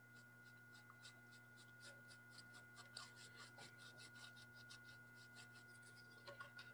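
Paintbrush dry-brushing quick strokes across a rough, sawdust-textured painted board: a faint, rapid scratchy brushing, about five or six strokes a second.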